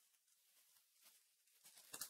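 Near silence: room tone with faint rustles and a light click near the end.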